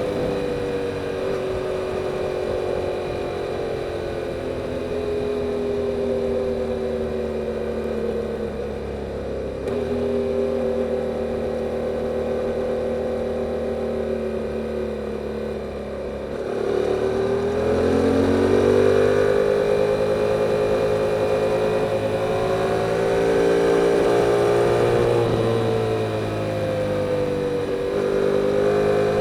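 2022 Yamaha R7's 689 cc CP2 parallel-twin on its stock exhaust, heard from the bike while riding. The engine note holds fairly steady at cruising revs. It drops briefly about sixteen seconds in, then climbs as the bike accelerates, and dips and rises again near the end.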